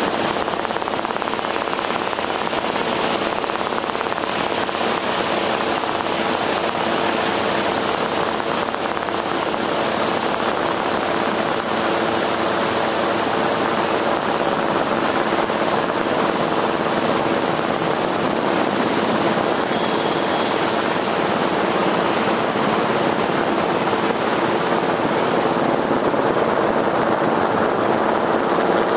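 Steady engine drone of the aircraft carrying the camera: a constant hum with a few held tones over a rushing hiss of air noise.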